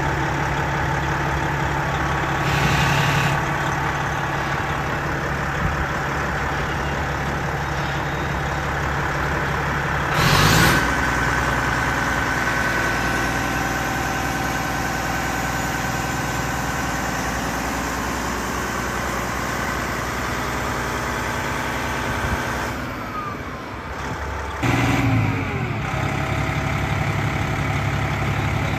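The Detroit Diesel Series 60 inline-six of an American LaFrance Eagle aerial tower truck running steadily at idle, powering the aerial during a ladder test. A faint steady whine runs through the middle. Short louder bursts come about three seconds in, about ten seconds in (the loudest, a brief rush of noise), and near the end.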